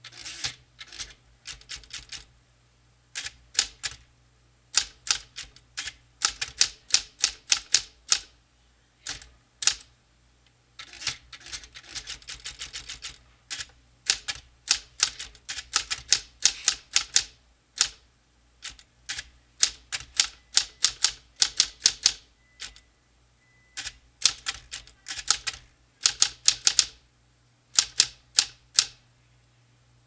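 Smith-Corona typewriter being typed on: runs of rapid keystrokes lasting a second or two, broken by short pauses, over a steady low hum.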